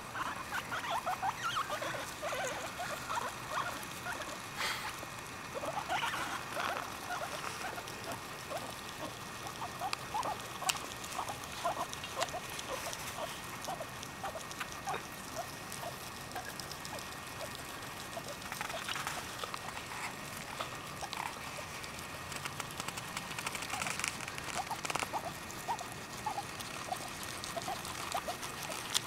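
Guinea pigs munching fresh grass with crisp, crackly chewing, while one of them, a black-and-white Abyssinian, gives many short squeaks in quick runs.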